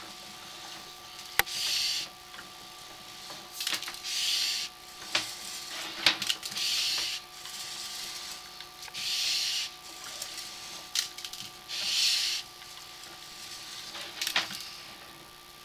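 Sewer inspection camera's push cable being pulled back by hand: a hissing swish about every two and a half seconds, with scattered sharp clicks and a faint steady tone underneath.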